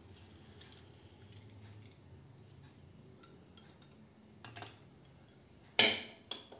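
Faint clicks and handling sounds of a metal hand-held lemon squeezer being pressed over fish pieces in a bowl, then a sharp, loud metallic clatter with a short ring near the end as steel kitchen utensils knock together.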